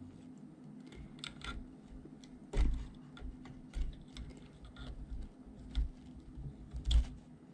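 Irregular clicks and scrapes of a long metal pick digging heat-softened tar out of a Bakelite capacitor block held in pliers, with two louder knocks, about two and a half seconds in and near the end.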